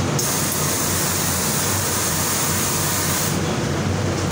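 Steady machinery hum with rushing air noise. A higher hiss joins just after the start and stops about three and a half seconds in.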